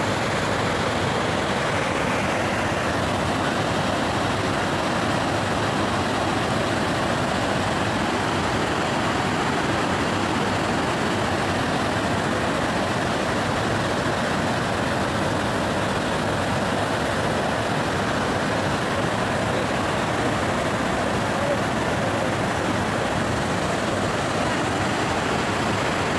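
Steady rush of water from a broad waterfall cascading over rock ledges.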